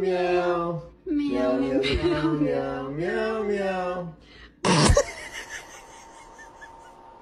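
A man's voice singing slowly in long held notes for about four seconds. About four and a half seconds in comes a short, loud burst of noise, the loudest moment, followed by faint hiss with a thin steady tone.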